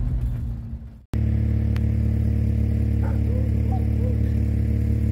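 A vehicle's engine under way on a rough road fades out in the first second. After a sudden cut it gives way to a steady low engine hum at idle, with a few faint short chirps in the middle.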